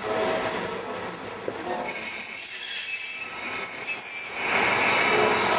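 A KiHa 48 diesel railcar braking to a stop at a station: a high, steady brake squeal starts about two seconds in and cuts off suddenly as the train halts, over the low running noise of the car.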